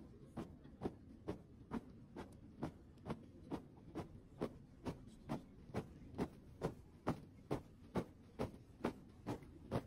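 Steady thumping beat, about two strokes a second and evenly spaced, in time with a troop marching in step.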